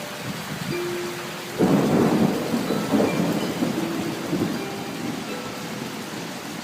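Steady rain with a sudden clap of thunder about a second and a half in, rumbling on and dying away over the next few seconds.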